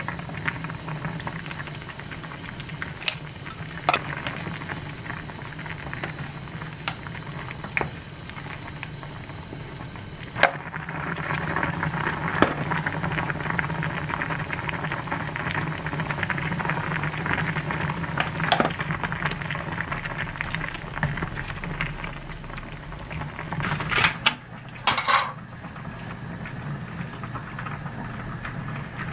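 Spicy tofu stew simmering and bubbling in a pan on a gas stove over a steady low hum, with scattered light clicks of utensils and ingredients going in. A couple of louder clatters of kitchen utensils come near the end.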